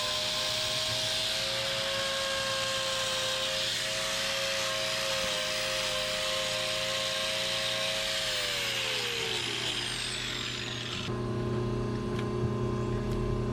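Handheld power grinder running with a steady whine and a hiss as it cuts cow hoof horn, then switched off and winding down, its pitch falling from about eight to ten seconds in. After a sudden change near eleven seconds, a steady low hum takes over.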